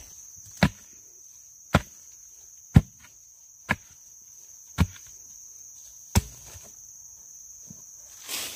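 Six sharp chopping blows, about one a second, struck with a hand tool. A steady high insect drone runs under them.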